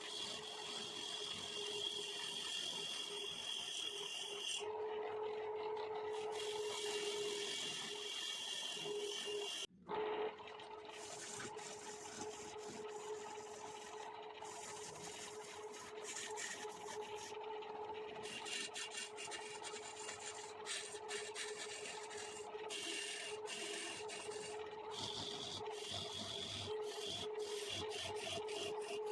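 Wood-turning lathe running with a steady hum while a hand tool scrapes against the spinning wooden bangle blank in repeated passes, the scraping starting and stopping.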